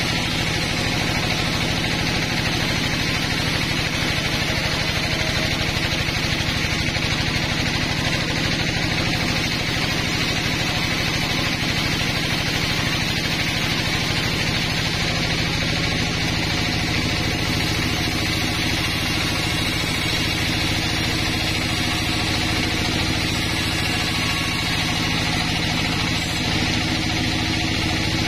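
Band sawmill running steadily as its blade saws through a pine log, a continuous machine hum under the hiss of the cut.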